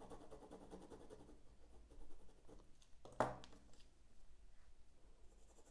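Faint graphite pencil strokes scratching on drawing paper as the pupil of a drawn eye is shaded darker. About three seconds in there is a single sharp knock: a pencil set down on the wooden drawing board as another is picked up.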